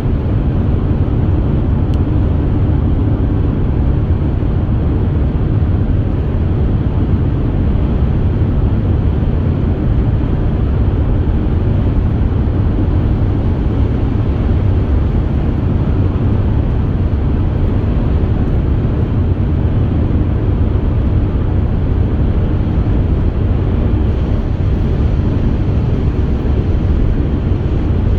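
Steady road noise and low engine rumble inside a car's cabin, driving at highway speed.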